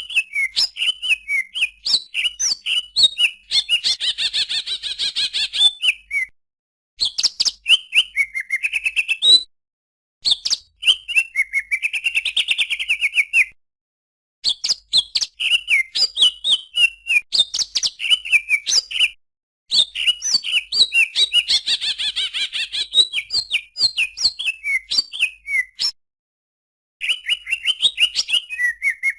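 Cucak ijo (green leafbird) singing: fast, varied chattering phrases of quick chirps and trills, in bouts of a few seconds separated by short pauses.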